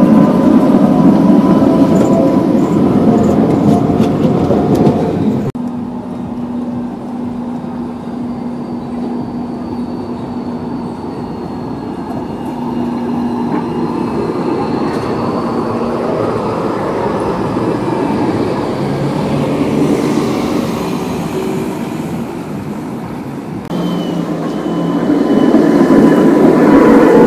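Trams rolling past close by on street track. At the start an older high-floor Tatra tram runs by loudly, rumbling with steady high tones over it. After a cut a modern low-floor articulated tram rolls by more quietly, and near the end another Tatra tram passes close and loud.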